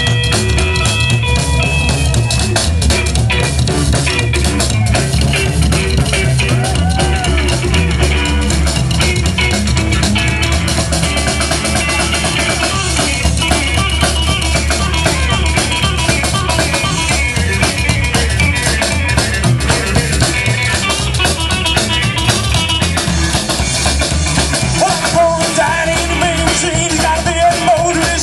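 Live rockabilly band playing: upright bass, drum kit and hollow-body electric guitar.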